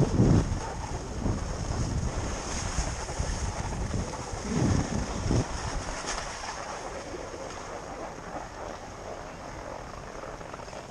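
Wind buffeting the microphone in low gusts, strongest in the first half, over a steady high hiss.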